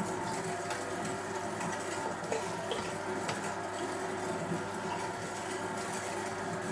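Electric meat mincer running steadily as venison is fed through it and ground into mince, a steady motor hum with a few faint clicks.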